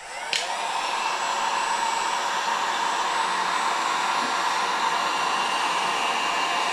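Electric heat gun blowing steadily, switched on at the start, heating the aluminium engine case so the case's crankshaft bearing bore expands for a frozen crankshaft to be dropped in.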